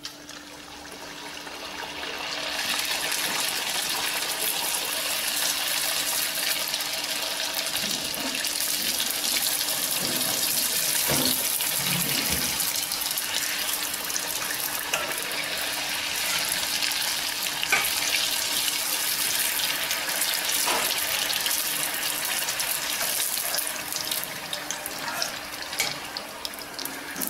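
Semolina puri deep-frying in hot oil in a steel kadai. The oil starts sizzling as the dough disc is dropped in, builds over the first two seconds to a loud steady sizzle, and a few light clicks of the tongs against the pan come through.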